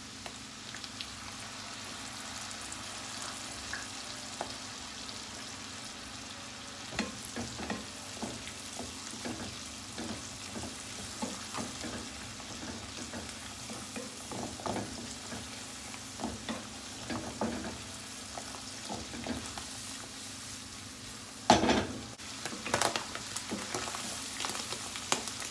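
Sliced button mushrooms sizzling steadily in butter and white wine in a non-stick frying pan as the wine reduces. A wooden spatula stirs and scrapes the pan bottom, with scattered scrapes and taps from about a quarter of the way in and one sharper knock a few seconds before the end.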